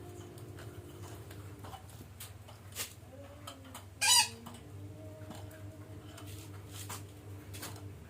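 A single short, harsh screech from a red-breasted parakeet (betet) about four seconds in, the loudest sound, over a faint steady low hum and a few faint clicks.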